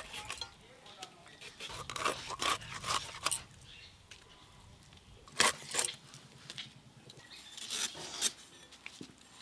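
Irregular scraping, rubbing and sharp clicks from hand work at a boti, a curved floor-mounted kitchen blade. First rohu fish is cut and scaled against the blade, then aromatics are peeled at it near the end; the two loudest clicks come about halfway through.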